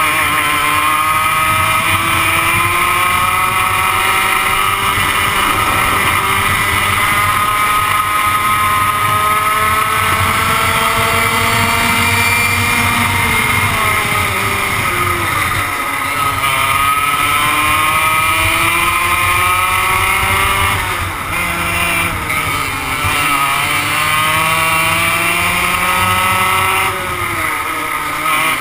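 A 100cc two-stroke go-kart engine at racing speed, heard from on board the kart. Its pitch climbs under full throttle and drops several times as the driver lifts for corners, then climbs again.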